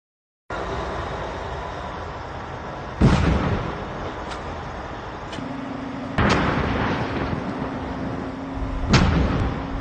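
Landmines detonating under the KMMCS mechanical mine clearance machine: three blasts about three seconds apart, over the steady noise of the machine working.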